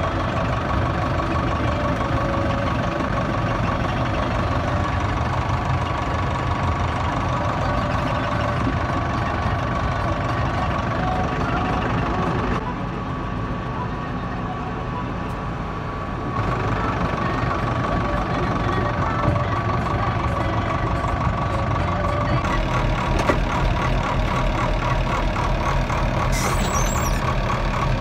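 A truck engine running steadily, heard from inside the cab, driving a drum winch that winds in steel cable, with a steady whine over the engine. It drops a little quieter for a few seconds about halfway through.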